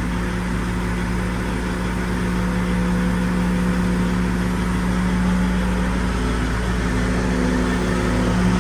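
Cat 308 excavator's diesel engine running steadily with an even drone, growing slightly louder toward the end.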